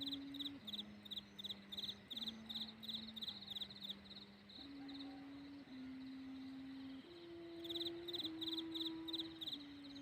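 Thai kite hummer (sanu), a bow-shaped hummer on a flying kite, droning in the wind. It gives a steady wailing tone that jumps between a few pitches, holding each for a second or so. High pulsed chirps, a few a second, run over it at the start and again near the end.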